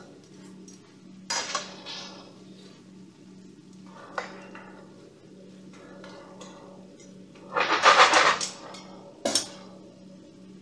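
Metal tongs clinking and scraping against a stainless steel frying pan as sauced pork chops are turned, in a few scattered clatters. The loudest is a scraping clatter about a second long near the end, followed by a single sharp clack as the tongs are set down.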